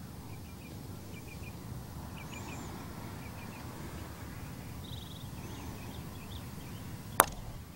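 Small birds chirping over quiet outdoor ambience, then about seven seconds in a single sharp click: a putter striking a golf ball on a short putt.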